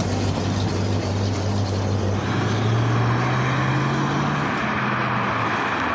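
A PAZ-320302 bus's ZMZ-524 petrol V8 engine running close by. About two seconds in it revs up as the bus pulls away from the stop, then settles.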